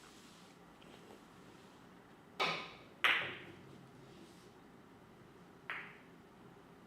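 Carom billiard balls clacking during a shot: two sharp clacks about half a second apart, the second the loudest, then a softer clack a few seconds later.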